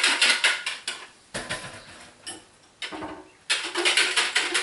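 Rapid clicking and clattering of plastic pitchers and utensils being handled and rinsed out with water, in two busy spells with a quieter gap of a few scattered knocks between them.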